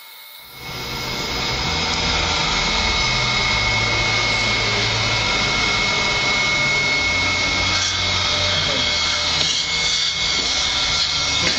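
Dental suction running: a steady rushing hiss with a constant high whine. It comes in suddenly about half a second in and holds even.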